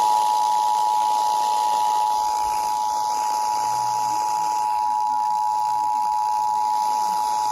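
Emergency Alert System attention signal: two steady tones close in pitch sounding together, held without a break, over a faint hiss. It marks the start of an emergency alert, here a severe thunderstorm warning.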